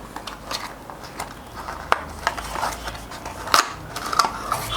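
Packaging of an Intel stock CPU cooler being handled and opened by hand: irregular crinkles, rustles and clicks, with sharper snaps about two seconds and three and a half seconds in.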